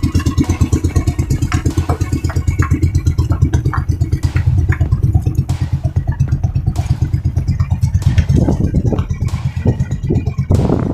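Engine of a motorized outrigger fishing boat running steadily with a fast, even chugging beat, with a few short knocks and clatters over it.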